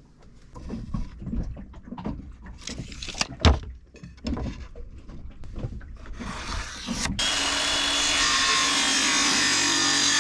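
Irregular knocks, clunks and clatter of stored items and boards being moved about inside a wooden boat closet. About seven seconds in, a steady, louder, continuous sound starts abruptly.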